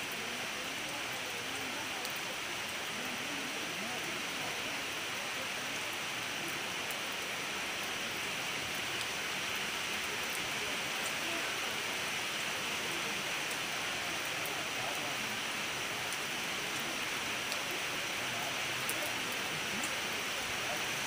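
Steady hiss of rain falling on wet stone paving.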